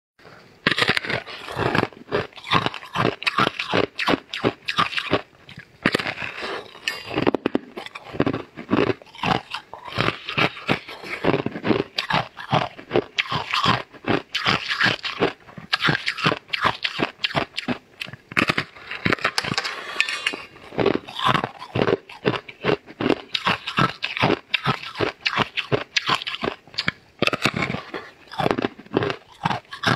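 Close-miked crunching and chewing of a large, thin, crisp star-shaped cookie, with rapid crackling crunches and short pauses between bites.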